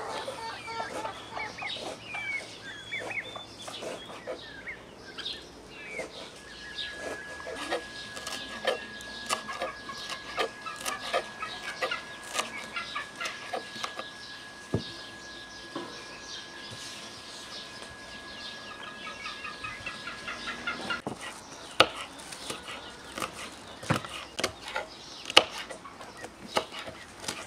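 Chickens clucking for the first few seconds. Then a knife chops rapidly on a wooden cutting board, mincing fresh herbs, with chickens still clucking faintly. Near the end the strikes turn louder and more spaced out as the knife cuts through green peppers on the board.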